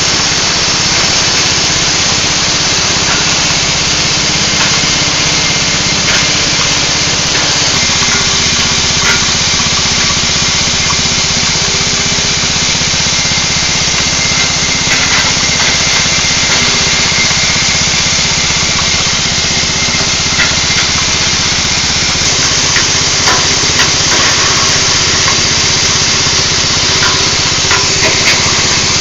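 Engine-driven livestock forage chopper running steadily, its motor droning with a steady low hum, and occasional short sharp clicks.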